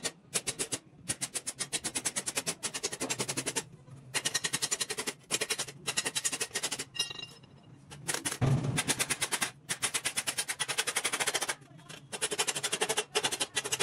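A steel hammer tapping thin sheet metal held over a steel channel, in quick runs of light strikes about ten a second with short pauses, folding the sheet's edge into a flange for a rocker panel patch.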